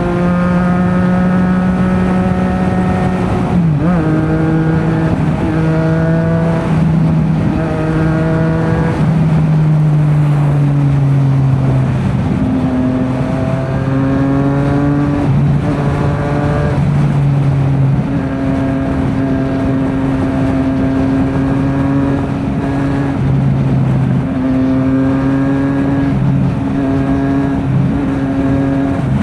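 Triumph Street Triple RS 765's inline three-cylinder engine through an SC Project S1 slip-on exhaust while riding: a steady engine note at cruising throttle that rises and falls in pitch several times as the bike speeds up and slows.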